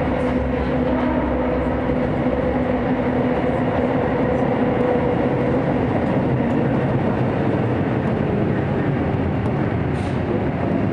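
Hokuso Railway 9000 series electric train running through a subway tunnel, heard from inside the car: a steady rumble of wheels and running gear with a humming motor tone under it.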